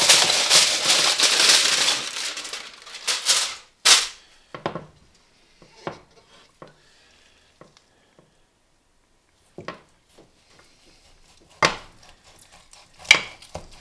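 Aluminium foil crinkling as it is pulled open and peeled off a roast for the first four seconds or so, ending in a sharp click. After that only a few scattered light taps and clicks, with quiet between.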